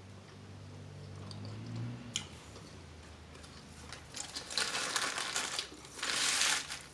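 Close-miked eating noises: two bursts of crackly, rustling sound, about four seconds in and again near the end, over a faint low hum.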